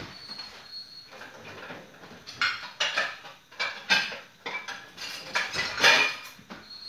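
Metal pans and lids clattering and clanking while someone rummages through a cookware drawer to pull out a pan lid. The clanks come irregularly, and the loudest cluster is near the end.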